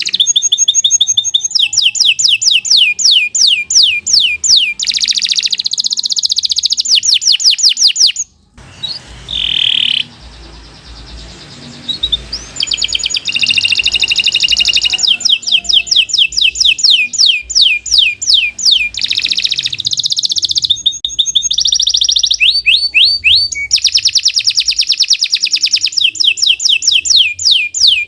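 Domestic canary singing long, rapid trills of quickly repeated sweeping notes, rolling from one phrase into the next. The song breaks off for about four seconds near the middle, then resumes.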